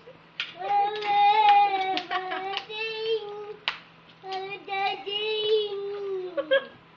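Young child singing a song in long held notes, with a short break a little past the middle.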